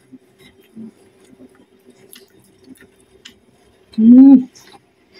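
Faint wet mouth clicks of someone chewing food, then about four seconds in a short, loud hummed 'mmm' through closed lips that rises and falls in pitch.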